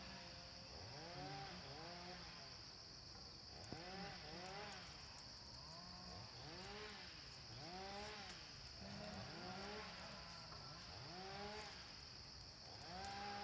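Insects droning steadily at a high pitch, with faint short rising-and-falling calls repeating about once a second underneath and a few light clicks.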